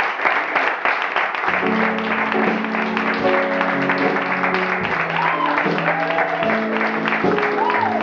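Audience applauding, with instrumental music coming in under the clapping about a second and a half in and playing held chords.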